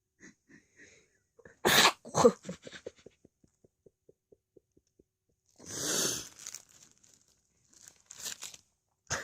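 A person sneezing explosively about two seconds in, after a few short catching breaths, with a second burst right after. A trail of short, evenly spaced pulses fades out over the next few seconds, and another loud sneeze-like blast follows near the middle, with smaller bursts near the end.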